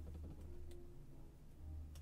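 Quiet handling of small die-cut cardstock petals being pressed into place by hand, with two faint clicks over a low steady hum.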